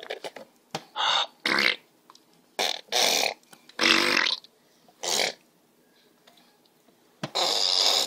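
A baby making a string of short, breathy, raspy goofy noises with his mouth. There are about seven of them, each under a second long, with pauses between, and the longest comes near the end.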